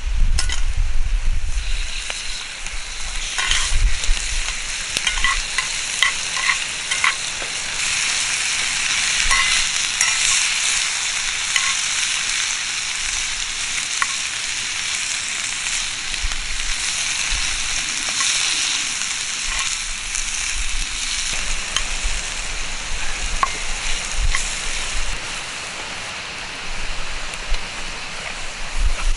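Food cooking over a wood campfire: a steady sizzling hiss with scattered crackles and pops.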